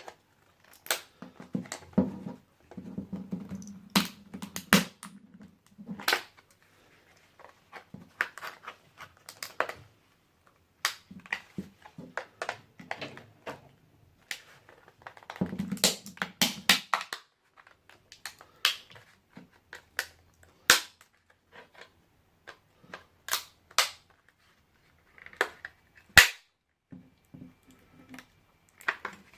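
Plastic laptop battery pack casing being pried and cracked open: many irregular sharp snaps and cracks, with stretches of crunching and scraping as the case is forced apart.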